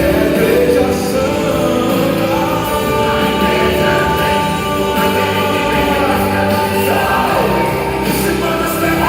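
Gospel song with singers over a full band backing, the vocal lines holding long notes.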